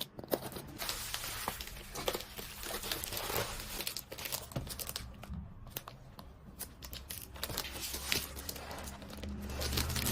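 Packaging being handled and opened: irregular crinkling and tearing rustles with small clicks.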